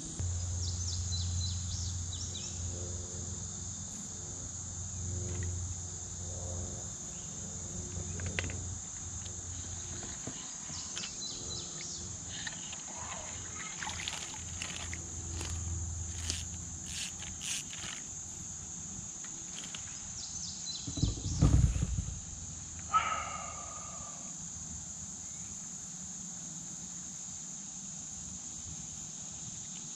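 Steady high-pitched insect chorus of crickets or cicadas, with scattered small clicks through the middle and a brief low thump about two-thirds of the way in.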